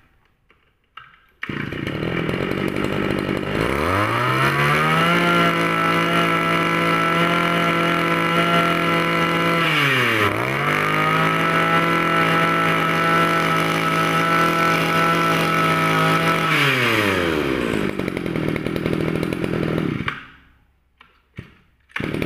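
Echo 31 brush cutter's 31cc two-stroke engine starting about a second and a half in, idling briefly, then revved up to a steady full-throttle scream. It dips once about halfway and climbs straight back, then drops back to idle and is shut off a couple of seconds before the end.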